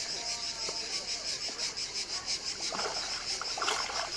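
Insects chirring high and shrill in a steady pulse of about four to five beats a second. In the second half come a few short, irregular knocks and splashes.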